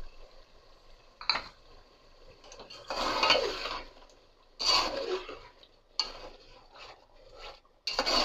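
Slotted metal spatula scraping around the inside of an aluminium cooking pot, stirring yogurt into a thick meat curry: one sharp knock about a second in, then a scrape about every second and a half.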